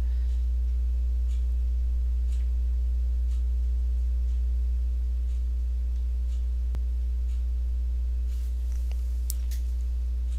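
Steady low electrical hum with a few faint higher steady tones over it, and a few faint clicks.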